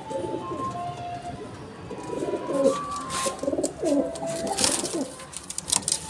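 Domestic pigeons cooing, a run of repeated rising-and-falling coos, with a few sharp clicks and rustles around the middle and near the end.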